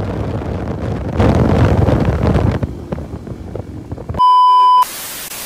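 Wind buffeting the microphone and road noise from a moving motorcycle. About four seconds in, a loud, steady beep cuts in for about half a second, followed by a short burst of static hiss.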